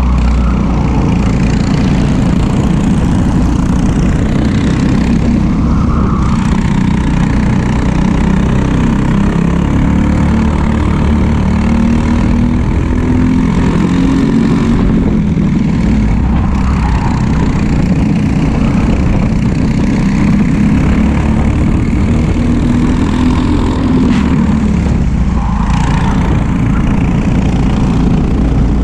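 Briggs & Stratton LO206 single-cylinder four-stroke kart engines at racing speed, the engine note rising and falling as the karts accelerate and lift through the corners, over a steady rush of wind noise.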